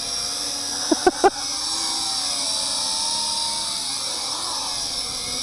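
WLToys Q919-A tank drone's four quadcopter motors and propellers whining steadily at a high pitch as it powers up to lift its heavy frame out of the sand, the pitch wavering a little as the throttle shifts. A couple of short blips sound about a second in.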